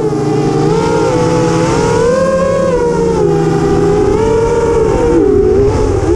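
FPV quadcopter's electric motors and propellers whining, heard from the onboard camera. The pitch keeps rising and falling with the throttle.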